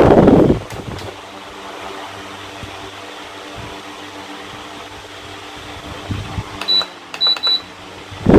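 Electric fan running with a steady hum and whir. Loud bursts of air buffet the microphone in the first half second and again at the very end. Three short high-pitched electronic beeps with clicks come about seven seconds in.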